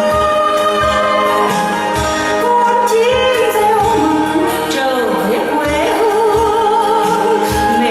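A song with a singer's voice wavering in vibrato over backing music with a steady low beat.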